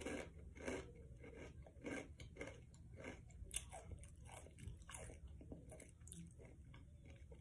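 A person chewing a crunchy snack, with a string of irregular crisp crunches, about two a second.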